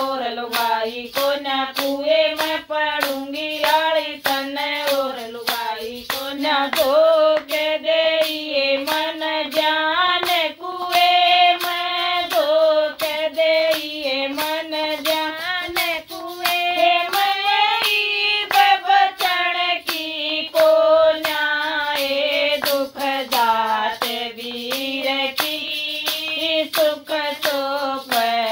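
A woman singing a Haryanvi folk song in a wavering, ornamented line, accompanied by steady hand claps keeping time.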